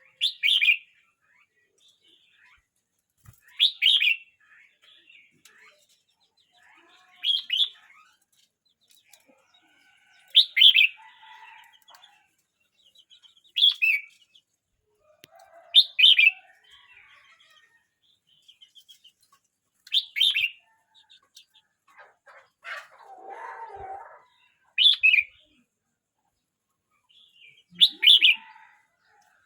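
Red-whiskered bulbul singing short, loud, bright phrases, one about every three to four seconds, nine in all. A brief, lower, noisy rustle comes about two-thirds of the way through.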